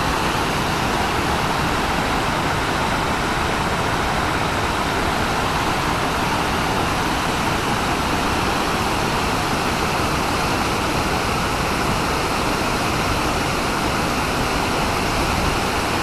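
Waterfall: a wide cascade of river water pouring over the tiers of a stepped check dam onto rocks, a steady loud rushing that does not change.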